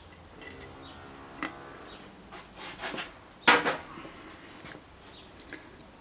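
Scattered small clicks and knocks of engine parts and tools being handled on a workbench, with one sharper knock about three and a half seconds in.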